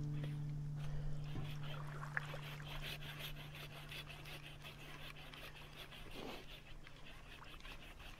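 Hand pruning saw cutting a konara oak log, a faint repeated rasping of its strokes. Under it, a low sustained music note fades out.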